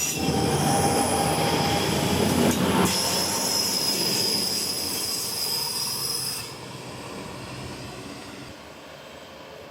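DB class 623 (Alstom Coradia LINT 41) diesel multiple unit rolling past on the rails with a loud, high wheel squeal over the running noise. The squeal and most of the noise stop suddenly about six and a half seconds in, leaving a quieter fading rumble.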